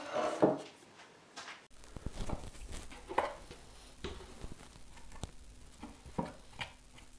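Handling of a routed wooden guitar body on a wooden workbench. A knock about half a second in as it is set down, then scattered light knocks, rubs and brushing of hands over the wood.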